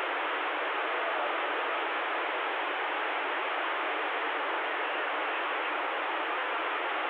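Steady static hiss from a Stryker CB radio's speaker on an open channel with no one talking, thin and boxy like radio audio.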